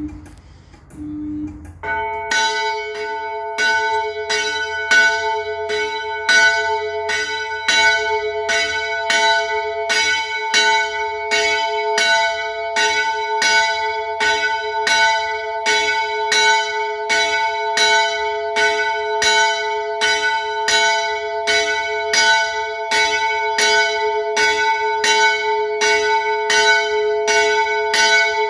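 Small church bell (518 mm, about 80 kg, cast in 1917 by the Fischer brothers of Trnava) swinging and ringing solo. Its clapper strikes evenly, about one and a half times a second, from about two seconds in, and the tones hang on between strokes.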